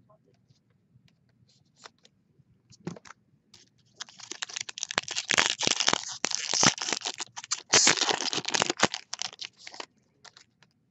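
Hockey card pack wrapper crinkling as it is torn open: a few scattered clicks, then dense crackling and tearing for about five seconds.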